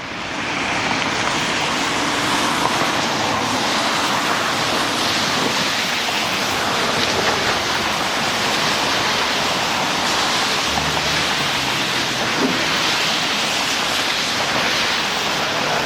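Steady outdoor rushing noise, even and unbroken, with a brief low hum about eleven seconds in.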